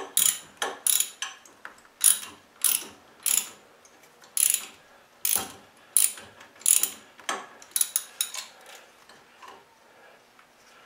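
Socket ratchet wrench clicking in short back-and-forth strokes, about one or two a second, as a bolt is tightened; the strokes die away about eight seconds in.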